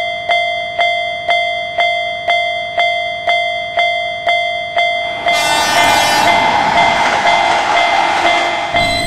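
Railroad crossing warning bell ringing steadily, about three strokes a second. About five seconds in, a passing train's rushing noise joins over the bell and stops abruptly near the end, while the bell keeps ringing.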